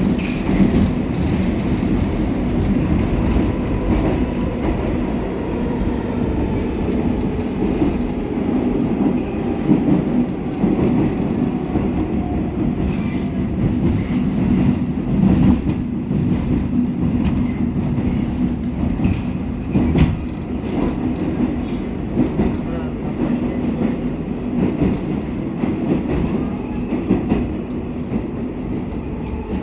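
Moscow metro train running, heard from inside the car: a steady rumble of wheels on the rails with scattered knocks. A faint whine slowly falls in pitch during the first half.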